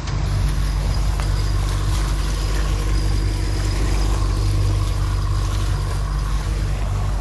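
Boat motor running steadily under load while towing a floating boathouse, a constant low drone.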